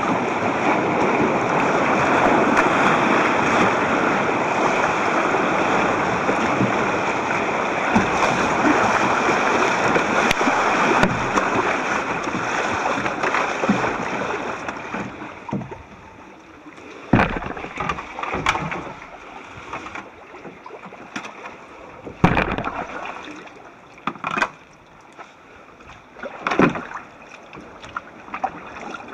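Wind and choppy sea water rushing around a sit-on-top kayak's bow, heard through a camcorder's waterproof housing. About halfway through the rush dies down to quiet, calm water, broken by a few sharp splashes and knocks.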